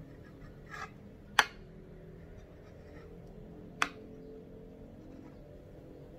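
Steamed milk poured quietly from a stainless steel pitcher into a ceramic cup, with two sharp clicks about two and a half seconds apart over a faint steady hum.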